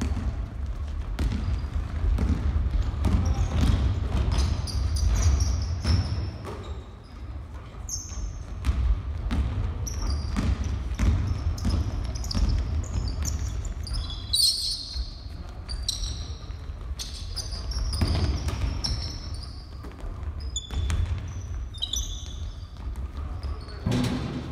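Basketball bouncing on a wooden gym floor during play: repeated knocks, with short high sneaker squeaks, and a louder knock near the end.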